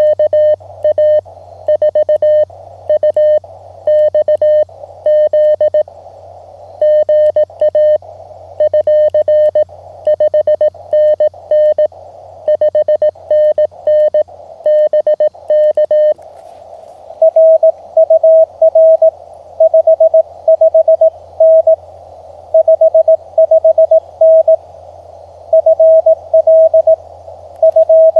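Morse code (CW) from a Mountain Topper QRP transceiver: a single mid-pitched tone keyed in dots and dashes over the hiss of the radio's narrow CW filter. About sixteen seconds in, the tone steps up a little in pitch and the keying rhythm changes, as a second signal takes over.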